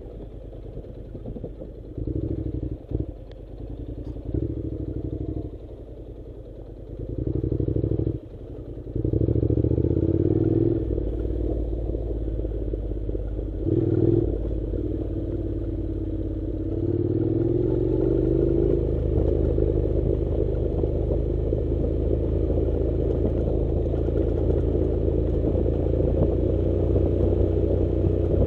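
Honda NC700's 670 cc parallel-twin engine on a dirt-track ride: short on-off bursts of throttle in the first several seconds, then running steadily under power, with the revs climbing once a little past the middle.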